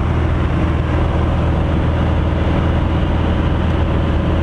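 Light aircraft's engine and propeller running steadily at cruise power, heard from inside the cabin as a loud, constant low drone.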